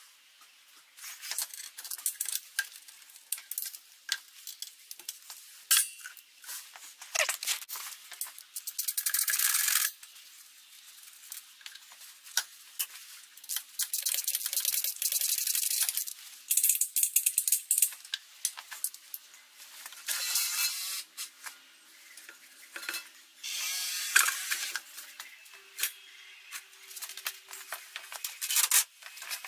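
Hand-tool work on an air compressor: metal clinks, rattles and scrapes of a wrench and gloved hands on its fittings and bolts, in irregular bursts, some lasting about a second.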